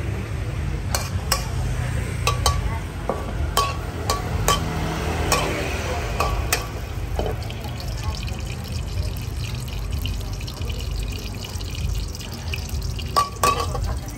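Metal spatula striking and scraping a steel wok, sharp ringing clinks that come about eight times in the first seven seconds and twice more near the end, over the steady hiss of liquid sizzling in the hot wok and the low roar of the gas burner.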